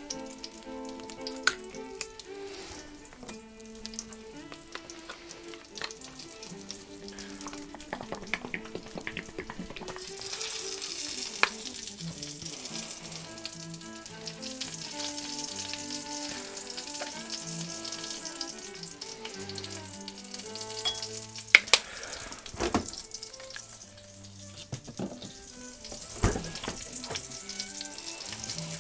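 Fish fingers sizzling in a frying pan, with a spoon knocking sharply against a bowl a few times while a sauce is mixed. The loudest two knocks come about two-thirds of the way through. Background music with a changing melody plays throughout.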